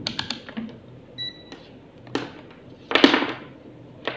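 Rotary selector dial of a UNI-T digital multimeter clicking through its positions, followed about a second in by the meter's short electronic beep. Then a few knocks and a louder rustling clatter near three seconds as the meter's test leads and probes are handled on the table.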